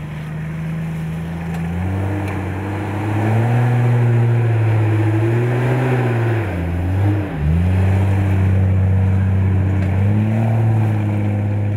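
A four-wheel-drive's engine revving under load as it drives through mud. The revs step up about two seconds in, dip sharply and pick back up about seven seconds in, then hold steady.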